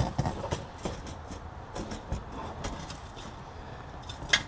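Faint metal clicks and ticks as a brake line's nut is threaded by hand into the proportioning valve, with one sharper click near the end.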